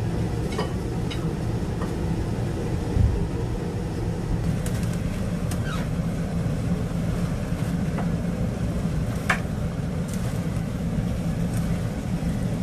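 Spinach stir-frying in a pan: a steady cooking noise over a low hum, with scattered short taps and scrapes of chopsticks and a wooden spatula against the pan.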